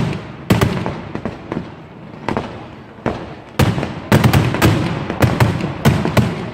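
Fireworks bursting overhead: a few loud bangs spaced about half a second to a second apart, then a quicker string of bangs from about four seconds in, each followed by a rumbling echo.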